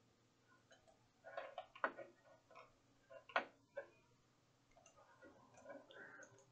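A few faint clicks from a computer mouse and keyboard. The sharpest come about two seconds in and twice around three and a half seconds in.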